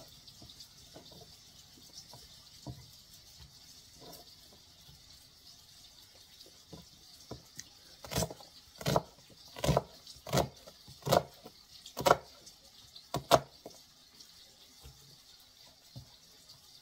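Chef's knife cutting through an onion onto a cutting board: a few faint taps, then from about eight seconds in a run of about seven sharp knife strikes on the board, roughly one every 0.7 s, ending about two-thirds of the way through.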